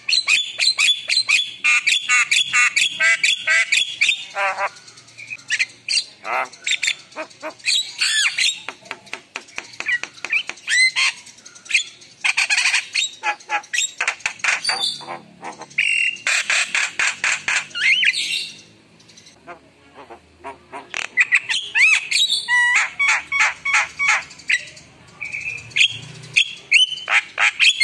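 Javan myna singing at close range: a long, loud run of rapid clicking chatter mixed with quick whistled notes, with a short lull about two-thirds of the way through.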